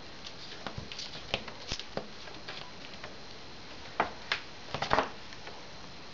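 Siamese cat playing with a small toy frog on a bath mat and tiled floor: scattered light taps, scuffs and rustles of paws and toy, with a few sharper knocks about four to five seconds in.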